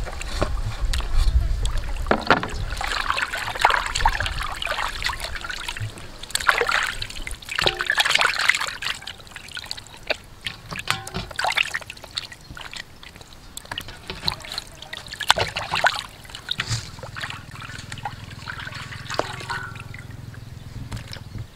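Raw chicken pieces being washed by hand in a stainless steel bowl of water: irregular splashing, sloshing and dripping as the pieces are lifted and rubbed, with many short sharp clicks. The splashing is busiest in the first half and thins out toward the end.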